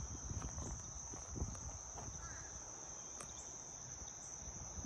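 Insects trilling in one steady, unbroken high-pitched drone, faint, over a low rumble.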